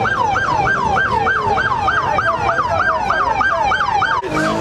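Police car siren in fast yelp mode: a rapid rising-and-falling wail repeating about three and a half times a second, breaking off briefly near the end.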